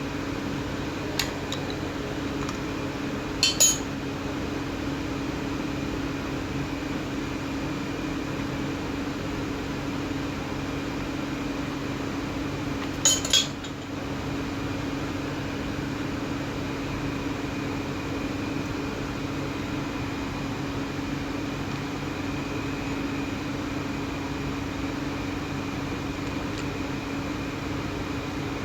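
Angle grinder running steadily with a constant whine, with two short metallic clinks, about four seconds in and again about thirteen seconds in.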